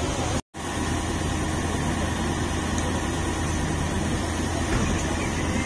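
Heavy diesel engine of a railway crane vehicle running steadily with a low hum while it holds up a wrecked car. The sound cuts out for an instant about half a second in.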